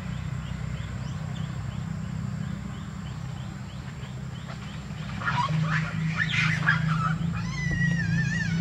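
Macaques calling in the trees: harsh, noisy cries begin about five seconds in, then a long, wavering, high-pitched scream starts near the end. A steady low hum and faint repeated chirps lie underneath.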